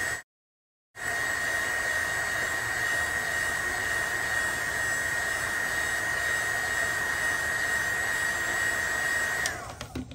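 Small handheld heat gun blowing hot air onto the edge of a cracked iPhone screen to soften the adhesive: a steady rush of air with a steady high whine. About nine and a half seconds in it is switched off, the whine falls away, and a few clicks follow as it is set down.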